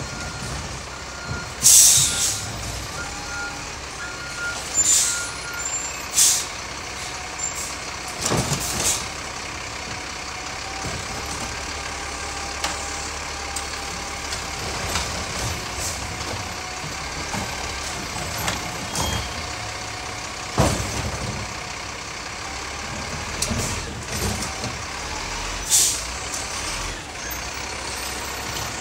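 Diesel garbage truck running, its backup alarm beeping for the first six seconds or so, with several sharp air-brake hisses, the loudest about two seconds in.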